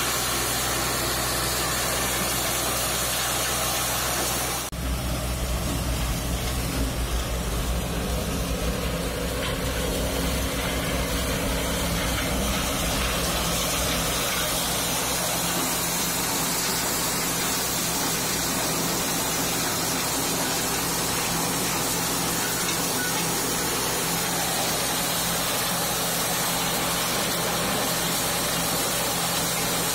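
Old tractor-driven corn sheller running steadily, threshing ears of corn, over the steady drone of the tractor engine. The sound changes abruptly about five seconds in, then runs on evenly.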